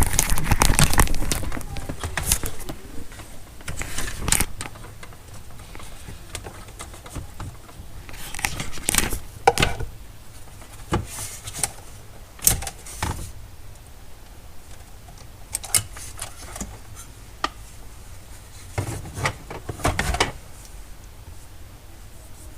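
Hands and tools working on a car's plastic dash trim: irregular clicks, rattles and short scrapes as the panel and its fittings are pried and handled, in scattered clusters.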